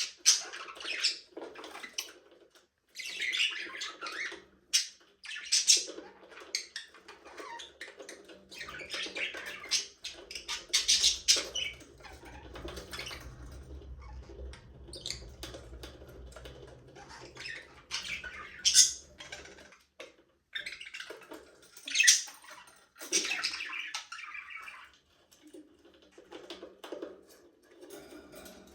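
A small flock of budgerigars chattering and chirping in irregular bursts, with a few sharper, louder squawks.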